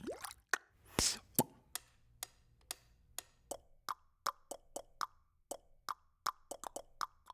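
A series of short pops, irregularly spaced at about two to three a second, each with a brief ring after it.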